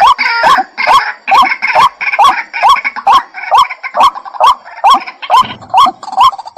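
White-breasted waterhen calling: a steady run of short, repeated notes, about two a second.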